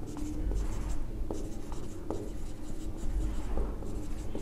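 Marker pen writing on a whiteboard: a run of short scratchy strokes with small taps in between as the letters are drawn.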